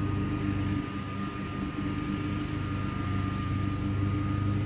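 Commercial Bobcat zero-turn mower's engine running steadily while mowing, a low drone with a faint steady whine above it, easing slightly about a second in.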